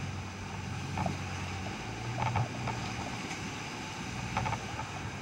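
Boat engine running steadily under wind and rushing water from the churning wake in rough seas, with a few brief knocks.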